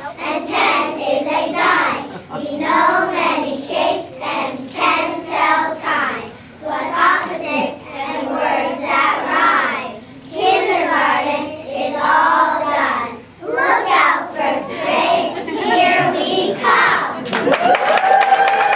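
A group of young children singing a song together. Near the end the singing stops and the audience breaks into applause.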